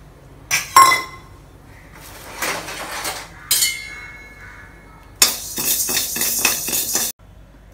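A metal spatula clinking against a kadai and scraping through dry urad dal as it is roasted. Two sharp, ringing clinks come under a second in, the grains rustle around two to three seconds in, and another clink follows. Near the end comes about two seconds of quick, rhythmic scraping that stops suddenly.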